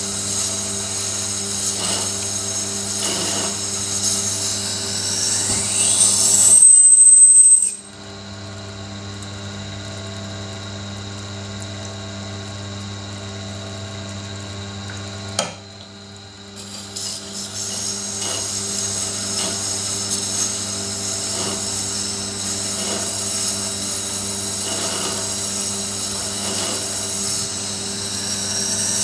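Tormek T7 wet grinder's motor humming steadily as a steel knife blade is ground on its stone wheel, set to 1000 grit. A brief high whine about seven seconds in, then the grinding stops for several seconds, leaving only the motor hum and a click, before it starts again.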